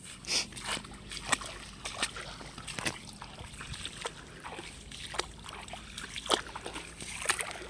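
Water splashing and sloshing in a quick, irregular string of short splashes.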